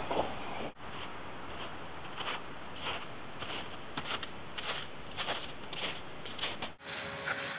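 Footsteps crunching on snow, a steady walking rhythm of a little under two steps a second over a faint steady hiss, which breaks off abruptly near the end.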